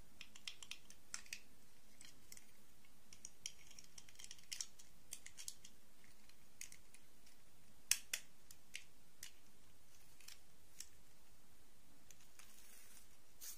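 Small plastic clicks and taps from handling miniature dolls and their clip-on plastic dresses, scattered irregularly, with the two loudest close together about eight seconds in.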